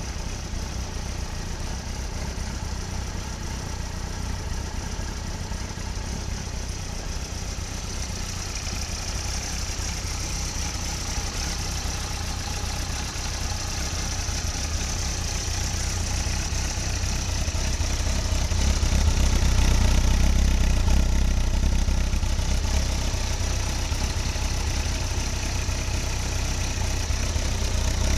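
2001 Yamaha FZ1's 998 cc inline-four idling steadily through a Yoshimura RS-1 aftermarket exhaust, growing louder about two-thirds through.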